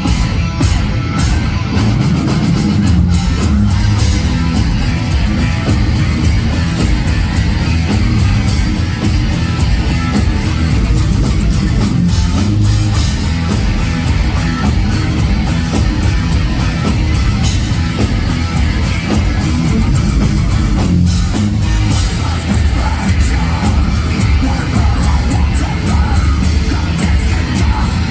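Heavy metal band playing live: distorted electric guitars and a drum kit at full volume, dense and steady.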